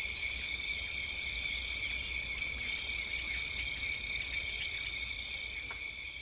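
A steady, high-pitched chorus of insects chirping, with short chirps repeating over a constant drone, beginning to fade near the end.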